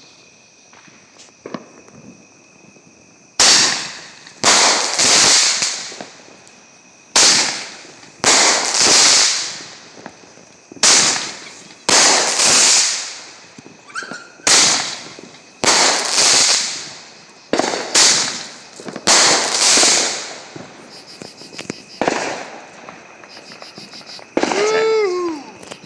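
Consumer fireworks going off in a regular series, about seven times: each time a sharp pop, then about a second later a louder hissing, crackling burst that fades over a second or two. Crickets chirp steadily underneath.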